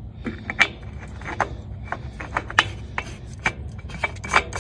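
A new Ford FL400S spin-on oil filter being turned by hand onto its threaded mount, with irregular clicks and rubbing from the metal can that come closer together toward the end.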